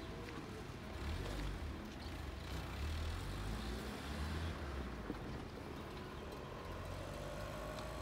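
Road traffic at a railway level crossing, with cars idling and then pulling across. A low wind rumble on the microphone runs under it, and a faint engine tone rises near the end as a car approaches.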